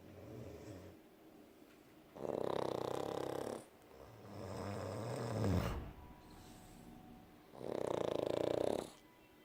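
Snoring: two loud, rattling snores about five seconds apart, with a softer, lower snore between them that rises in pitch at its end.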